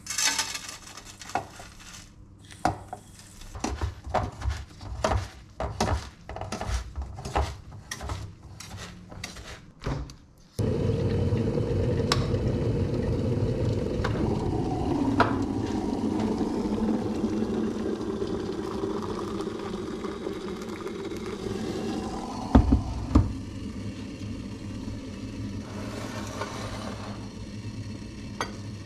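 A spatula scraping a steel mixing bowl and knocking against it as biscuit crumbs are tipped into a metal cake tin, with many short scrapes. After about ten seconds this gives way suddenly to an electric kettle heating water: a steady rumbling hiss that eases off toward the end, with two sharp clicks about two-thirds of the way through.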